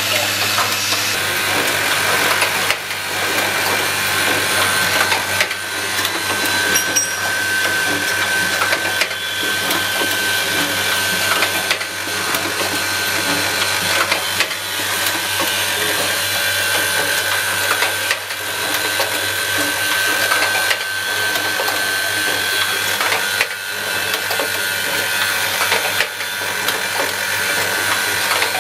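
Automatic switch assembly machine running: a steady low hum under dense, continuous rattling and clicking of parts and mechanisms.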